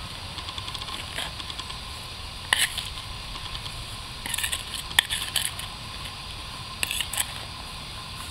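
Gloved hands scraping and raking loose soil away from the edges of a buried flat grave marker, in several short scratchy bursts, with one sharp click about halfway through.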